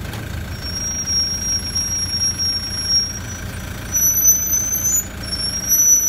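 Toyota Land Cruiser 120 Prado rear disc brakes squealing with a high, steady whistle as the vehicle rolls slowly: one long squeal from about half a second in to three seconds, a short one around four seconds, and another from just after five seconds, over the engine idling. The squeal comes from genuine Toyota rear pads; it started once they were bedded in and came back after new rotors, so the owner puts it down to the pads.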